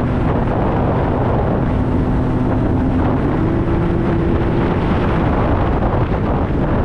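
Sea-Doo personal watercraft engine running steadily on the water, its note stepping up in pitch about three seconds in and easing back a little before the end, with wind on the microphone.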